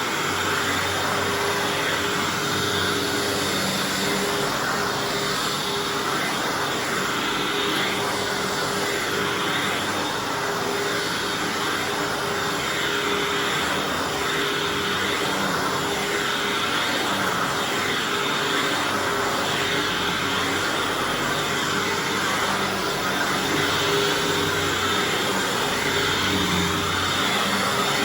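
Hoover Anniversary bagged upright vacuum running on thick carpet with its self-propel drive on: a steady motor hum under continuous rushing airflow and brush-roll noise.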